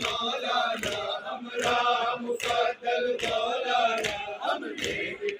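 A crowd of men chanting a mourning lament (noha) in unison, with rhythmic chest-beating (matam) slaps about twice a second.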